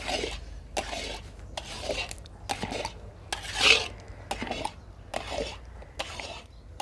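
A long metal scraper (khurchna) scraping and stirring thick carrot halwa against the bottom of a large metal kadhai, in repeated rasping strokes about two a second. Constant scraping keeps the thickening halwa from sticking to the pan.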